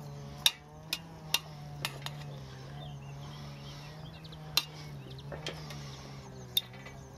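A spaghetti server clinking against the side of a stainless steel cooking pot as spaghetti and greens are tossed: a handful of sharp clinks, several in the first two seconds and a few more later. Under them runs a steady engine drone, a strimmer running somewhere nearby.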